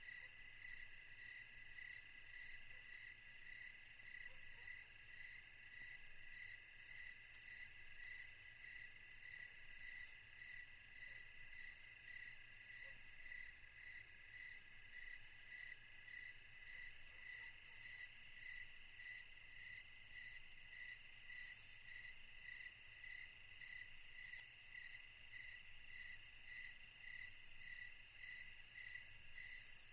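Faint insect chorus: a steady, rhythmically pulsing trill at about one and a half beats a second, with short higher buzzes every two or three seconds.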